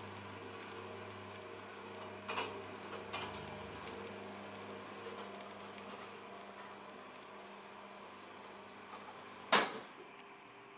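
Electric motor of a powder-coated steel scissor attic stair running steadily as the stair unfolds downward from the ceiling hatch. A few light clicks come a couple of seconds in, and there is one loud clack near the end.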